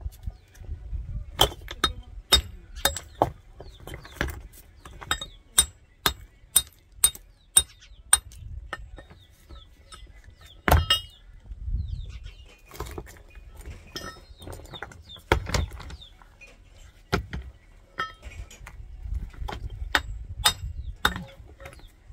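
Rough stones clacking and knocking as they are struck and handled: sharp separate clacks about once a second for the first several seconds, then irregular knocks and clinks as stones are shifted and set down.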